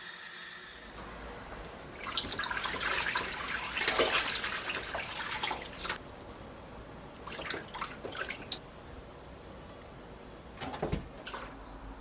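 Tap water running into a sink for a few seconds while godeulppaegi greens are rinsed, followed by shorter splashes as they are handled in the water.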